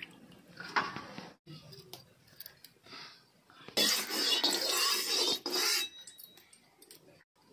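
Steel spatula scraping and clinking against a metal kadhai, loudest for about two seconds midway. Before that, faint splashing of raw chicken pieces being rinsed by hand in a steel bowl of water.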